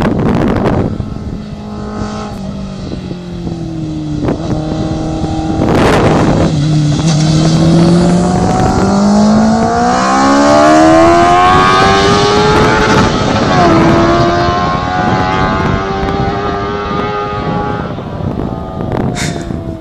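Honda CBR600 inline-four engine of an F2 racing sidecar accelerating hard, its pitch climbing and then stepping down at a couple of upshifts. It gets louder as the outfit comes close and passes, then fades toward the end.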